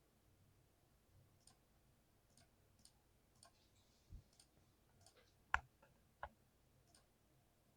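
Keys being pressed one at a time on a mechanical keyboard: about a dozen faint, scattered clicks, with two sharper, louder key strikes a little past halfway.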